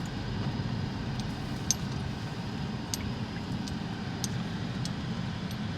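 Steady rumble of a car's engine and tyres heard from inside the moving vehicle, with a few light clinks and rattles from loose items.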